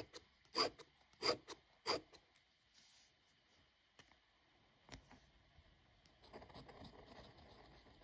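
Eraser rubbed back and forth across paper in four quick strokes over about two seconds. Later come two faint ticks and a soft scratching of a metal pen nib drawing on the paper.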